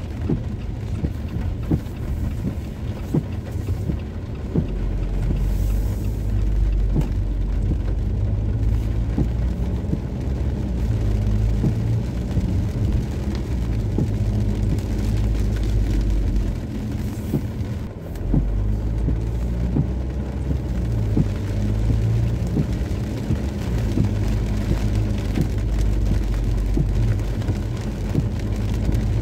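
Car driving on rain-soaked streets, heard from inside the cabin: a steady low rumble of engine and tyres on the wet road, with light ticks of raindrops on the windscreen.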